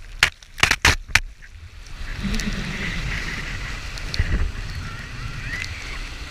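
Water rushing and spraying against a towed inflatable banana boat, with several sharp knocks of water hitting the boat and camera in the first second or so, then a steady rush of churning wake.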